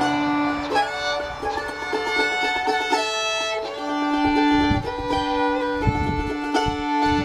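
Fiddle and mandolin playing a tune together: the fiddle carries the melody with long held notes, and the mandolin strums under it.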